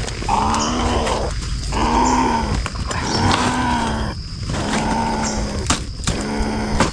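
A trapped civet growling in about five drawn-out calls, each about a second long, as it is handled. A few sharp clicks come near the end.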